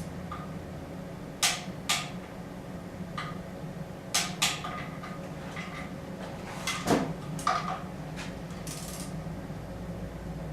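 Metal tools and engine parts clinking and knocking as they are handled, about eight sharp irregular strikes, with a brief hiss near the end over a steady low hum.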